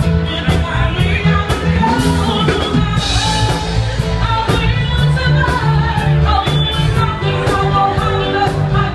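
Dance music playing loudly: a song with a singer over a steady drum beat and bass.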